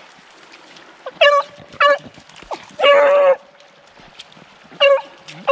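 Beagles baying: two short yelps, a longer drawn-out bay about three seconds in, and another short yelp near the end. This is the hounds giving tongue as they hit a rabbit's scent.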